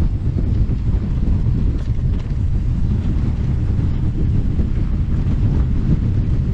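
Heavy, steady wind buffeting on a GoPro Max 360's microphone during a fast mountain-bike descent: a dense, low rumble with a few faint ticks.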